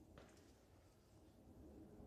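Near silence: faint low background noise with one faint tick.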